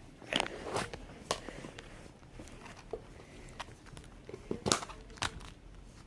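Plastic slime containers being opened and handled: scattered clicks and crinkles, with a few louder snaps about half a second in and near the five-second mark.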